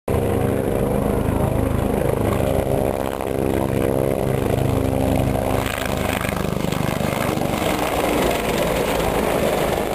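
Steady engine noise with an even, pulsing low beat, turning rougher and noisier about halfway through as a military utility helicopter flies low past.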